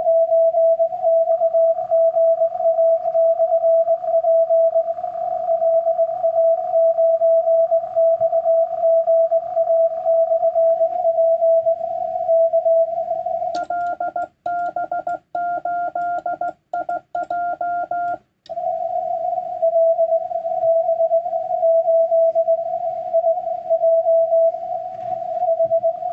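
Morse code (CW) from a Yaesu FTDX10 transceiver's speaker: a single steady tone keyed in dots and dashes over faint band hiss, as a station is received on the 30-metre band. For about five seconds in the middle the tone is cleaner, with dead-silent gaps between characters. This is the transceiver's own sidetone while a reply is keyed on a paddle.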